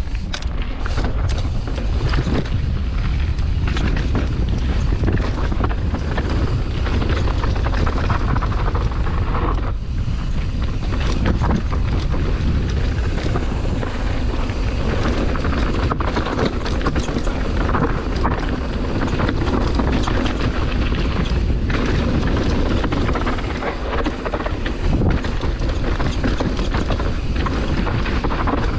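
Mountain bike descending a rough, rocky downhill track at speed: wind buffets the microphone, and tyres, chain and frame rattle and knock continuously over rocks and roots.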